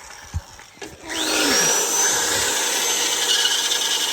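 Corded electric power tool spinning up about a second in, a quickly rising whine that settles into a high steady whine, then running at full speed with a rasping, grinding noise as it works against the material.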